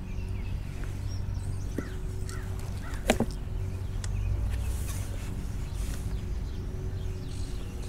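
Crows cawing in the background over a steady low rumble, with one sharp knock about three seconds in.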